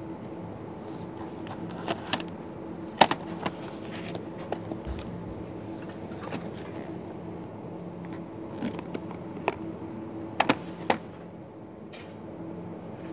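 Plastic food containers and plates clacking and knocking against each other as they are picked up and handled: scattered sharp knocks, the loudest about three seconds in and a quick cluster near the end. A steady low hum runs underneath.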